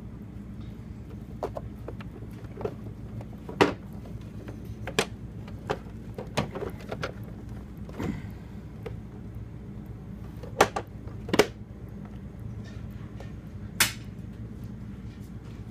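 Scattered sharp clicks and knocks of a small toy construction machine being handled while its wheels are cleaned, over a steady low hum.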